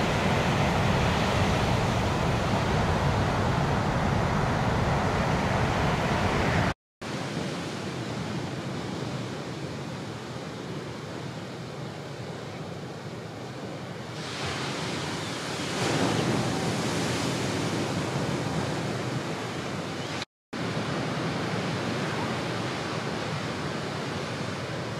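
Ocean surf and rushing water on a POV camera's microphone, in three stretches that cut off abruptly. The first stretch is the loudest, with a heavy low rumble; in the second a hiss swells up for a few seconds past the middle.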